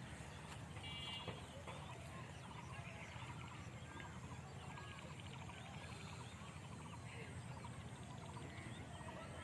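Faint outdoor ambience: many small birds chirping in short, scattered calls over a low steady rumble.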